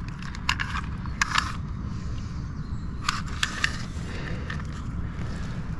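Scattered clicks and rustles of handling, in a few short clusters, over a steady low rumble.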